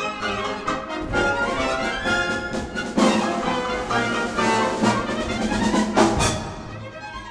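Orchestral music with brass to the fore, punctuated by two loud accented chords about three and six seconds in, then easing off near the end.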